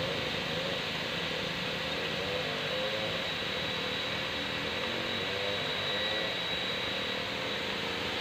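Steady rushing hiss of mist nozzles spraying fine water fog onto an evaporative cooling pad, with a faint hum underneath that wavers in pitch.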